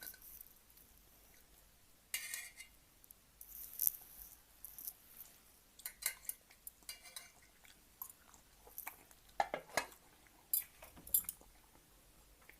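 Ramen-eating sounds picked up close to the microphone: utensils clinking against the bowl amid irregular short bursts of eating noise.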